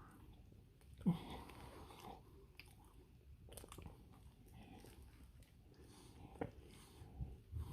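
A person chewing a chili dog on a toasted bun close to the microphone: faint, irregular wet chewing with a few sharp mouth clicks, the loudest about a second in.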